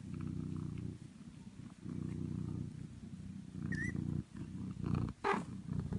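Domestic cat purring, a low pulsing rumble that swells and eases in stretches of about a second. A brief high chirp sounds about four seconds in.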